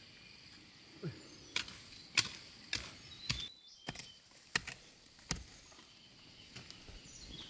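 Hand hoe striking the ashy, stony ground of a burned slope, digging planting holes: a series of sharp separate strikes, roughly one every half second to second, from about a second and a half in until a little after five seconds.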